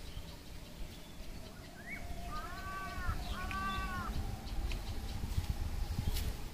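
An animal calls twice, two drawn-out, arching calls of just under a second each, a little over two seconds in, with a short rising chirp just before them. A low rumble runs underneath.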